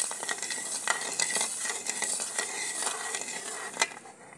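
A steel ladle stirring and scraping sugar and water in an iron karahi, with repeated short scrapes that grow quieter toward the end and one sharper knock near the end. The sugar is being dissolved to make syrup.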